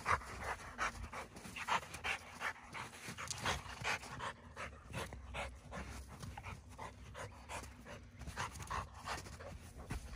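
A Rottweiler panting hard and rhythmically, about three to four breaths a second.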